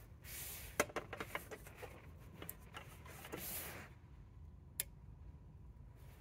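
Metal film reel tins being handled and restacked: a quick run of light clinks and taps, two short spells of rustling, and one sharp click about five seconds in.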